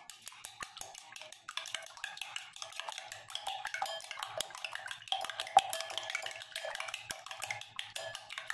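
Metal spoon beating raw eggs in a glass bowl, clinking rapidly against the glass.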